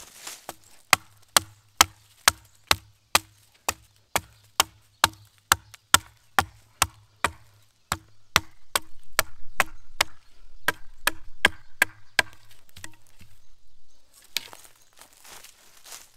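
Wood being chopped with a blade: a steady run of sharp blows, about two a second, which stops near the end and gives way to a brief rustle.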